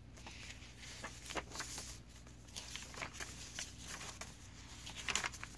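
Paper pages of a handmade journal being turned and smoothed by hand: soft, scattered rustles and light taps, with a slightly louder rustle about five seconds in.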